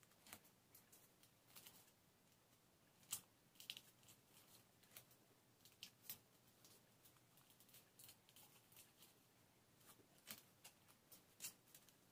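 Faint crackles and small sharp ticks of adhesive tape being pressed and smoothed around the edges of a cardboard cross by hand, scattered irregularly.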